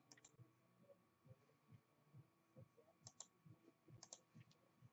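Near silence broken by a few faint computer mouse clicks, including two quick double clicks about three and four seconds in.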